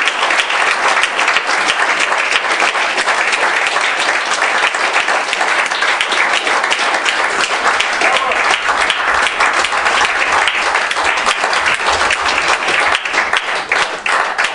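Audience applauding steadily, the applause beginning to die down near the end.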